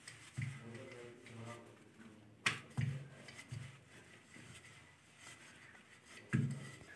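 Wooden rolling pin rolling out a stuffed paratha on a stone rolling board: repeated low rumbling strokes, with a sharp knock about two and a half seconds in and another near the end.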